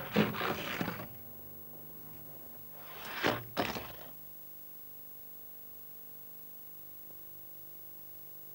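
Something rolling at speed down a loop-the-loop track and round the loop, heard twice: a rumbling rush about a second long that builds to a peak. After the second run only a faint steady hum remains.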